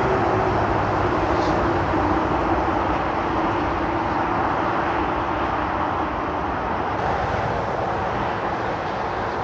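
Heavy M1 motorway traffic: a steady, loud rush of tyre and engine noise from many vehicles passing continuously.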